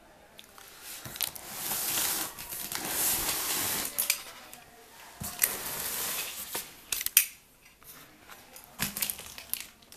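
Close handling noise: two long stretches of rustling and scraping, then a scatter of sharp clicks and taps in the second half, the loudest about seven seconds in.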